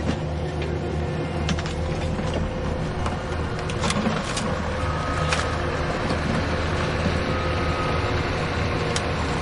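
Excavator's diesel engine running steadily, with a handful of sharp metallic clanks and knocks from the working machine.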